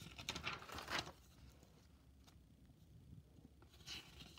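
Paper rustling as a page of a spiral-bound notebook is turned, in the first second; then mostly quiet, with a short faint rustle near the end.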